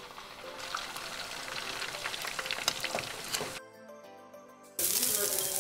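Garlic and chilies frying in hot oil in a wok, sizzling and crackling. The sizzle drops away about three and a half seconds in, then comes back suddenly much louder about a second later as sliced fresh red chilies are tipped into the oil.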